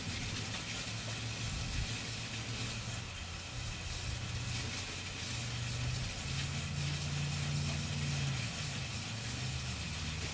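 An engine running steadily under a constant hiss, its hum growing louder for a couple of seconds about six seconds in.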